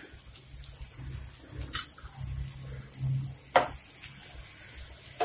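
Metal spatula stirring chopped onions, green chillies and curry leaves in a non-stick frying pan, with sharp clinks of the spatula against the pan about two seconds in, about three and a half seconds in (the loudest), and at the end.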